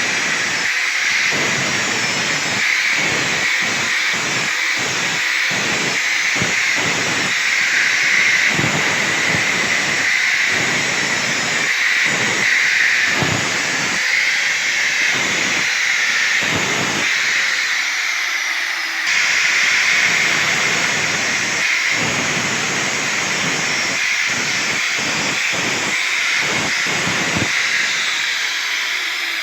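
Power tool grinding and polishing the welds on a steel railing: a loud, steady hiss, with a low rumble that comes and goes irregularly as the tool works the metal.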